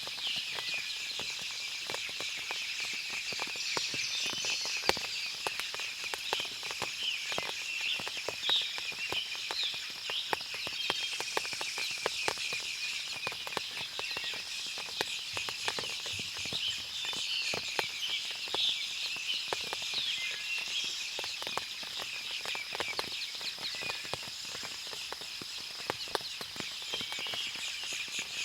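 Forest after rain: many birds chirping and calling at once over a steady high-pitched hum, with scattered clicks of water dripping from the trees.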